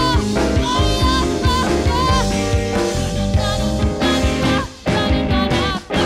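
A rock band playing, with a woman singing over drums and electric guitar for the first couple of seconds while the band plays on. The band cuts out briefly twice near the end.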